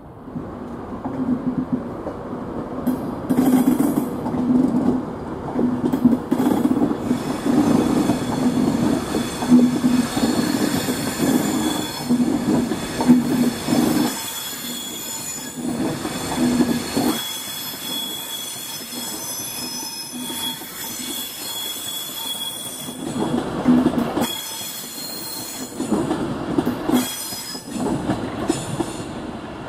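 Class 37 diesel locomotives' English Electric V12 engines running as 37668 is started up, an uneven low throb with a steady high whistle above it. The sound drops away briefly several times in the second half.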